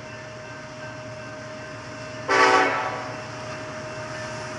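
Diesel freight locomotive's air horn giving one short blast about halfway through, over the steady rumble of a passing freight train with a constant whine.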